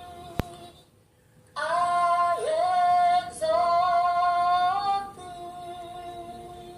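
A woman singing a slow worship melody, with a louder held phrase in the middle, softer sustained notes around it, and a dip in pitch within the loud phrase. A brief click sounds about half a second in.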